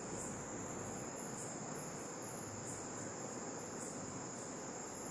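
Faint crickets chirping: a high steady trill with pulses about twice a second, over a low even room hiss.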